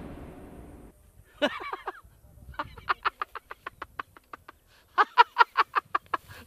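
A man laughing heartily in rapid 'ha-ha' pulses, about six a second. A short burst comes first, then two long runs of laughter.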